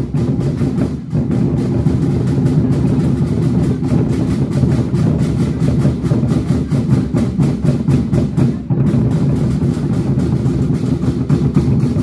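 Lion dance percussion: large drums beaten in a fast, steady, unbroken roll with crashing metal strikes over it, loud throughout with a brief dip about nine seconds in.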